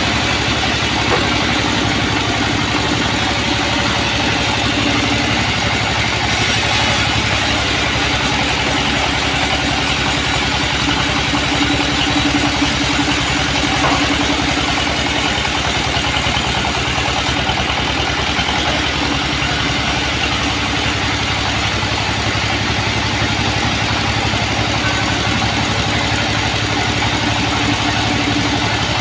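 Large band-saw mill running steadily, a dense mechanical noise over a low hum. A faint high hiss joins it about six seconds in and drops away around seventeen seconds.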